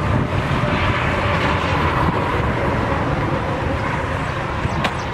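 Wind noise rumbling on the microphone over the steady rush of passing highway traffic, with a truck and trailer going by close toward the end. A brief click sounds near the end.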